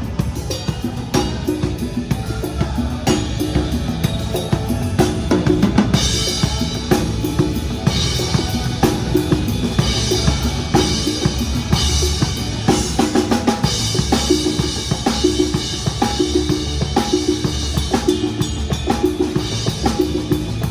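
Pearl Reference drum kit played in a steady groove: bass drum, snare and cymbal hits, with a repeating pitched part underneath.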